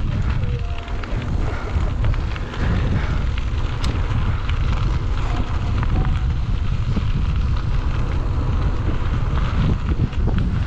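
Wind buffeting the microphone of a camera on a moving mountain bike, over a steady low rumble from the tyres on the trail, with scattered clicks and knocks from the bike.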